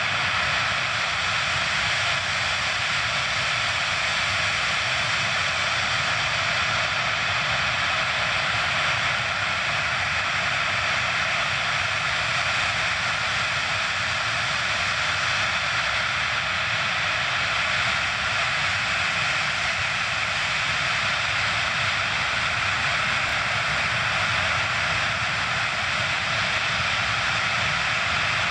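The four Ivchenko-Progress D-18T turbofans of an Antonov An-124-100 running steadily at low power as the freighter taxis slowly. It is a constant, loud jet roar with no spool-up.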